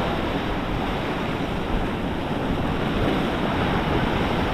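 Ocean surf washing against the inlet jetty, with wind rushing over the microphone; a steady wash of noise with no distinct events.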